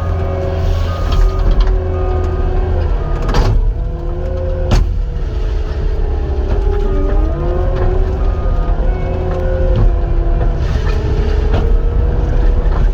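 Cat 259 skid steer's diesel engine running under work, its pitch rising and falling as the hydraulics are worked, with two sharp knocks a few seconds in.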